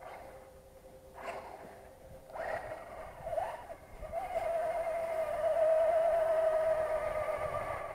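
Traxxas Slash 4x4's Velineon brushless electric motor whining on an RC truck driving on ice. There are a few short bursts of throttle, then from about four seconds in a steady whine that grows louder as the truck comes closer.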